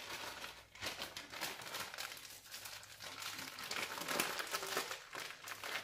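Packaging being handled and crumpled, a run of dense crinkling and crackling rustles.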